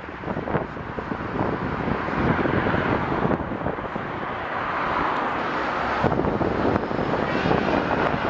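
Steam locomotive passing close by under heavy steam and smoke: a steady rush of exhaust and running noise, with wind buffeting the microphone.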